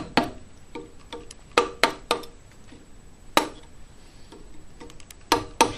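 Mallet striking a carving chisel, driving it into walnut while roughing out a deep relief carving. About a dozen sharp knocks come in irregular clusters, with a long pause in the middle before the last few blows.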